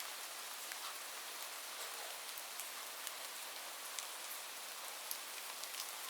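Light, gentle rain falling steadily: an even soft hiss with scattered individual drops ticking on a surface.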